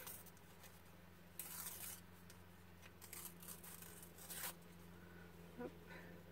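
Thin scrapbooking paper being handled and torn: two short papery rustles, about a second and a half in and again after about four seconds, over a faint steady low hum.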